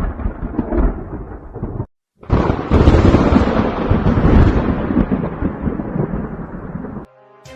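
Thunder rumbling, then after a brief break a louder, longer thunderclap that rolls and slowly fades over about five seconds. Music comes in near the end.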